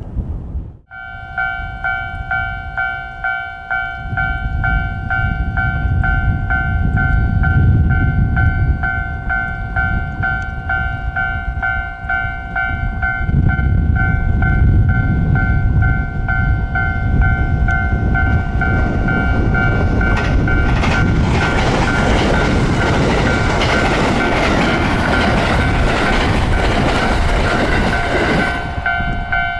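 Japanese level crossing warning bell ringing in steady, even pulses, with wind buffeting the microphone. From about twenty seconds in, a train passes over the crossing, its rail and running noise swelling over the bell for about eight seconds, then falling away while the bell keeps ringing.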